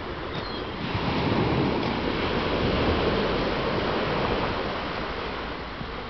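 Wind on the microphone: a steady rushing with low buffeting, swelling about a second in and easing toward the end.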